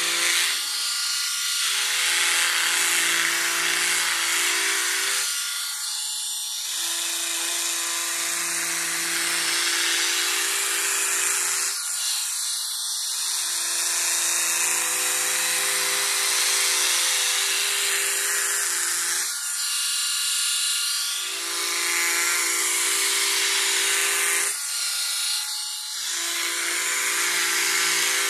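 Braun Silk-épil 9 Flex epilator running with its gentle cap fitted, drawn over the skin of a leg: a steady motor hum under a high, hissy buzz. The hum breaks off or shifts briefly about every five to seven seconds, five times in all.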